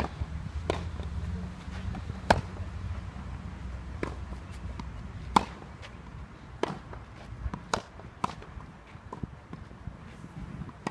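Tennis ball struck by racquets and bouncing on a clay court during a practice rally: sharp pops every half second to two seconds, some loud and some fainter.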